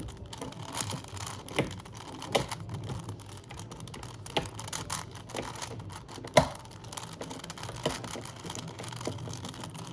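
Plastic Rubik's cube being scrambled by hand: its layers twisting with quick, irregular clicks and clacks, one sharper clack about six and a half seconds in.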